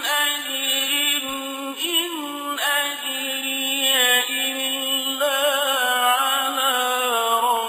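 A man's voice chanting Quranic recitation in the slow, melodic tajwid style. He holds long, ornamented notes that step and waver in pitch, with a trembling vibrato in the second half.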